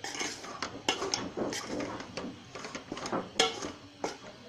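A utensil scraping and knocking against a cooking pan in irregular strokes while ground flaxseed is stirred and roasted in ghee until lightly brown.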